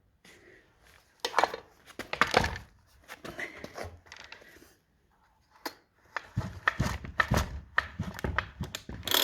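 Irregular knocks and clicks of a chainsaw's plastic and metal body being handled and set about on a bench, with a denser run of low knocks in the second half.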